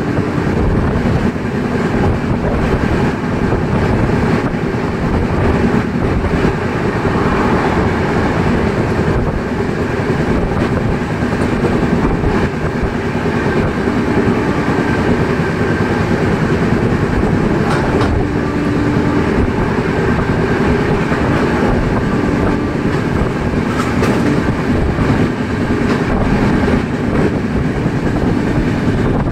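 An LHB passenger coach running at high speed: a steady, loud rumble and rush of steel wheels on the rails, with an occasional click of the rail joints.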